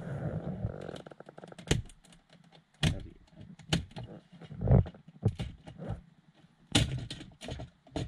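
Hand-tool and plastic-trim handling while a car's dashboard panel is unscrewed: irregular clicks and knocks, a few of them sharp and loud, with a quick run of fine clicks in the first second.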